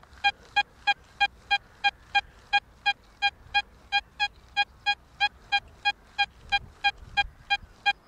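XP Deus II metal detector in its Sensitive Full Tone program, heard through its headphones, giving a smooth, evenly repeated target tone of about three beeps a second. It is a bright signal from a buried worn sixpence, which the detectorist is pretty sure of.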